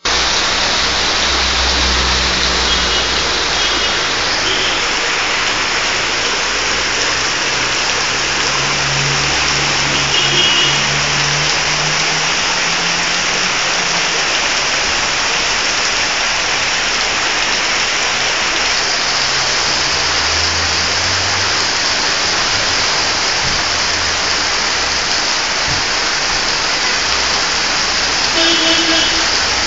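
Heavy summer rain pouring onto a flooded street, a loud, steady hiss of rain and running water. Now and then a car drives through the floodwater, its engine heard low under the rain.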